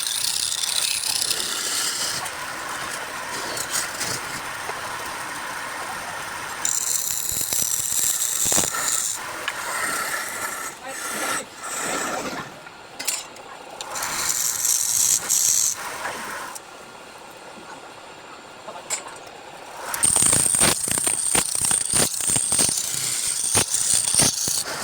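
Wood lathe turning, with a cutting tool scraping and hissing against the spinning wood. The sound changes every few seconds and is broken by sharp clicks and rattles.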